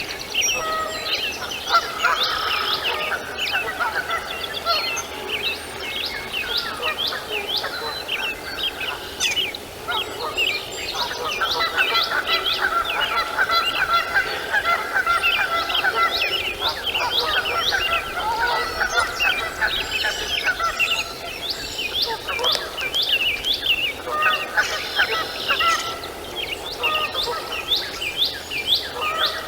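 Birds calling continuously: a dense chatter of short, high chirping notes repeated several times a second, over lower, drawn-out calls.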